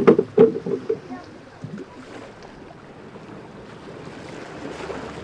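A few sharp knocks in the first second, then a steady rush of wind and choppy water on open lagoon water, with wind buffeting the microphone.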